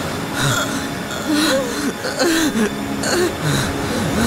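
A person's voice making short, bending vocal sounds, soft laughs and sighs, over a steady rushing noise.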